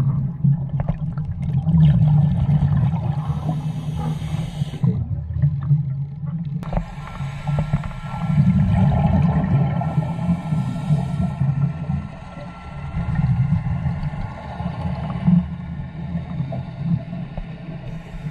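Underwater sound picked up by a diving camera: a steady low rumble, with the gurgle of a scuba diver's exhaled regulator bubbles coming and going.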